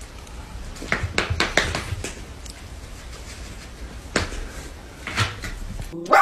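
Scattered light taps and knocks from a corgi puppy's paws and claws on a tiled floor and low cabinet as it jumps up, a few close together in the first two seconds and more spread out later. A louder sharp sound comes right at the end.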